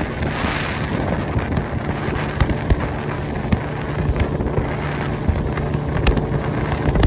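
A boat's motor runs steadily under way over calm sea, with wind rushing over the microphone and occasional short thumps.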